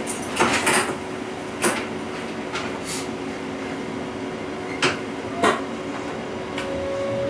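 Inside the driver's cab of a class 425 electric multiple unit standing almost still: a steady electrical hum with a constant tone, broken by a handful of short, sharp clicks and knocks.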